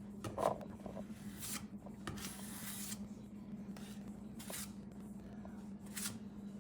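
Body filler being spread with a spreader: a handful of short, faint scraping strokes, the longest about two seconds in, over a steady low hum.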